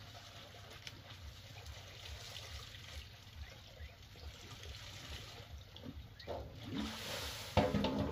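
Water sloshing and trickling in a metal basin as something is washed by hand, with a louder clatter near the end.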